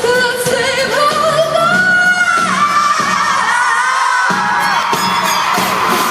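Live pop song in a large hall: a singer's melody over an amplified backing track, with crowd noise beneath. The bass drops out for about a second around the middle, then comes back in.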